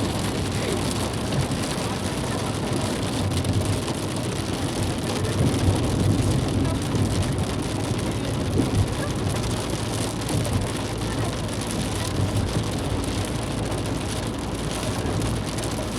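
Steady rain falling on surfaces, an even, continuous hiss with a low rumble underneath.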